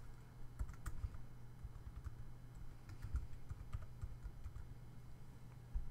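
Typing on a computer keyboard: a run of faint, quick, irregular key clicks.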